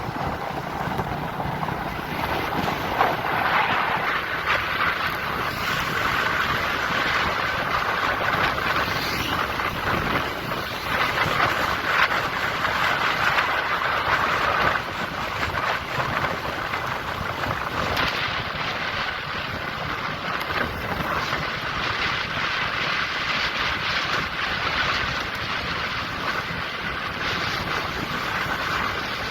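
Steady rush of wind across the microphone with vehicle noise underneath, rising and falling slightly in small swells.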